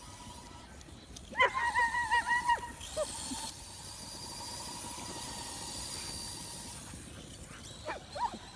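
Dog yelping excitedly in a quick high-pitched run about a second in, with a few more short yelps near the end, over a faint steady whine.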